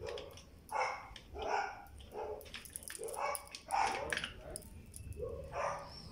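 A dog barking repeatedly, short barks about one to two a second.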